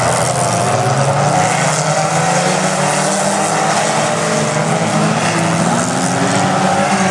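A pack of small dirt-track racing cars running hard together. Several engines overlap in a continuous loud din, their pitches rising and falling as the drivers rev and lift.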